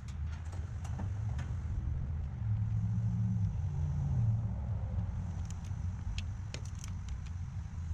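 Scattered small clicks and taps, as of tools and an outlet being handled, near the start and again after about five seconds. Under them is a steady low outdoor rumble, with a low hum that swells and fades in the middle.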